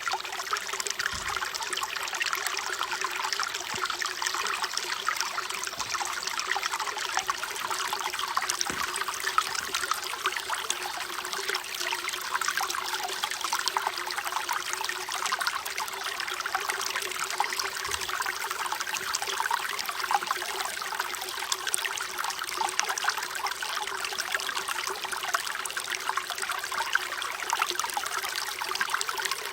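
Water trickling and running steadily, like a small stream, with a faint steady hum beneath it.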